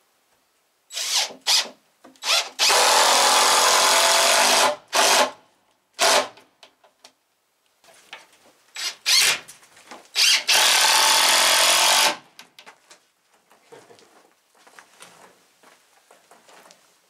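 Cordless drill driving screws into wood. Twice it gives a few short trigger pulses and then a steady run of about two seconds as a screw goes in. Faint knocks and handling noise follow.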